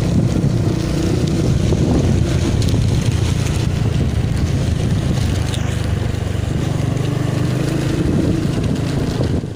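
Motorcycle engine running steadily while riding, with wind rushing over the microphone. The sound cuts off abruptly near the end.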